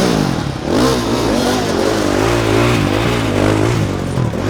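Enduro motorcycle engines revving up and down in quick, repeated throttle blips, over a steady lower drone.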